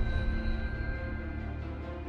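Tense, suspenseful background music: held tones and a deep low rumble slowly fading away.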